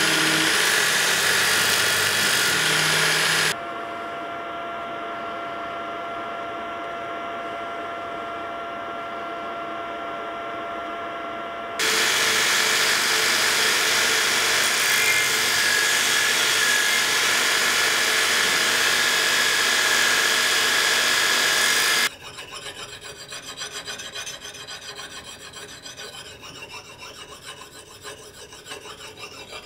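Belt grinder sanding a steel axe head: a loud, steady abrasive hiss, with a quieter stretch in the first half where a steady whine comes through. Later the grinding stops suddenly and gives way to quieter, uneven hand-sanding strokes on the steel head.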